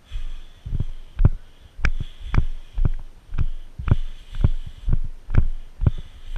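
Footsteps of someone walking briskly on a dirt and gravel track, heard close up through a body-worn action camera: an even run of low thuds with a light crunch, about two steps a second.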